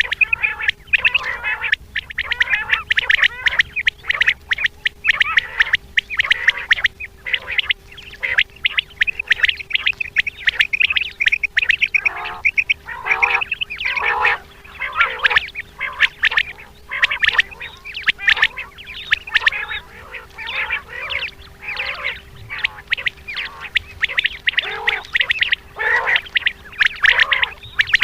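Female quail giving their mating call, a rapid, unbroken stream of short rough notes, over a faint steady hum.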